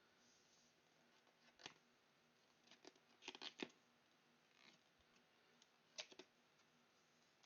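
Faint handling of cardboard and plastic microphone packaging during unboxing: a few soft clicks and rustles, with a cluster about three seconds in and another near six seconds.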